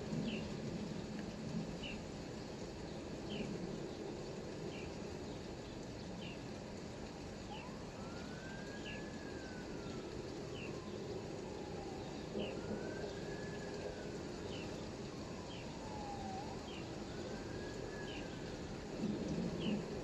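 Steady rain hiss with a bird repeating a short, high, falling chirp about once a second. From about a third of the way in, a distant emergency-vehicle siren wails, rising and falling slowly three times.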